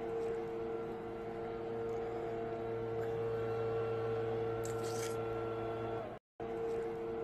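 A steady electrical-sounding hum made of several held tones, cutting out for a moment about six seconds in.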